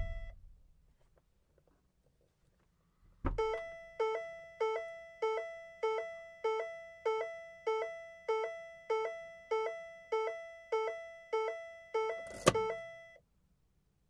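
Car's open-door warning chime beeping over and over, about one and a half beeps a second. It is set off by a thunk about three seconds in and stops shortly after a louder thunk near the end.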